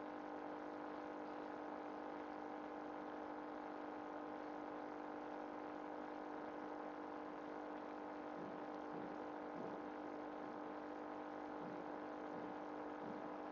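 Steady hum of a small motor, holding several fixed tones at an even low level.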